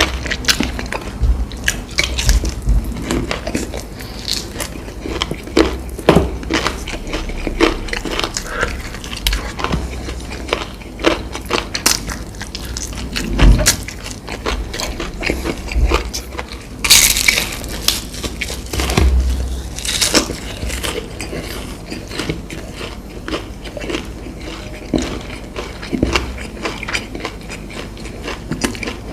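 Close-miked eating: crunchy bites into crispy fried food and steady chewing, a stream of small crackles and mouth clicks, with louder, longer crunches about seventeen and twenty seconds in.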